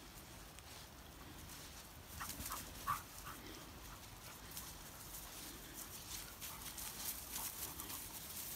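A dog gives a few short, high cries about two seconds in. Light clicks and rustling follow through the rest.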